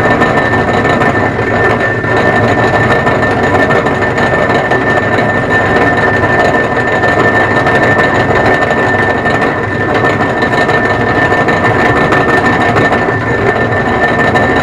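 Turnell & Odell lathe running steadily while drilling through its tailstock quill, with a constant high whine over the machine noise.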